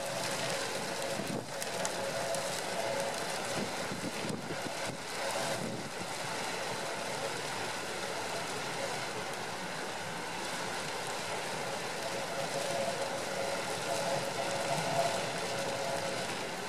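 Storm wind and heavy surf breaking against a concrete sea wall: a steady rushing noise, with a faint steady hum running through it.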